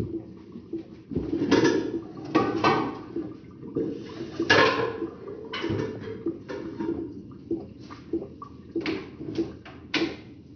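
Kitchen cookware being handled: a pot and its lid clatter and scrape in a dozen or so irregular, short knocks and rattles.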